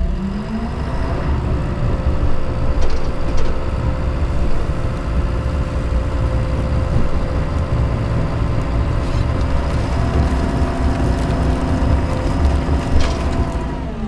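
John Deere 650K crawler dozer's diesel engine running steadily under load, its pitch rising about a second in, while the dozer pushes into a pile of scrap boards and brush. A few faint knocks come from the debris.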